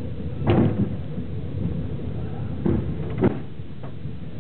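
Passenger train carriage running, heard from inside as a steady rumble with two pairs of heavy knocks as the wheels pass over rail joints.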